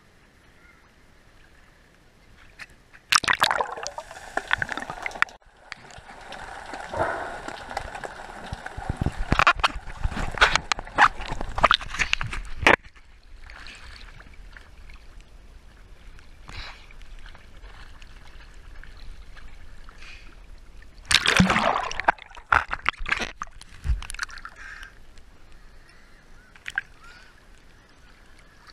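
Sea water sloshing and splashing close to the microphone, in several loud bursts of a few seconds each with quieter lapping between.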